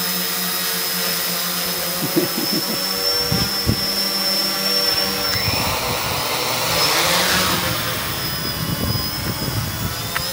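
Quadcopter rotors whirring with a steady high whine. About six seconds in the pitch glides up and back down.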